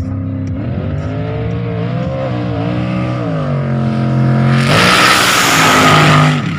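A station wagon's engine revving hard, its pitch rising and falling, then about four and a half seconds in a loud hissing tyre squeal joins as the rear wheels spin and smoke, ending suddenly just before the end.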